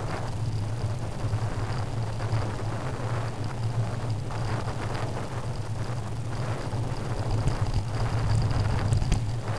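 Wind rushing over a helmet-mounted camera's microphone while cycling along a tarmac path, with a steady low hum and a faint steady high whine underneath.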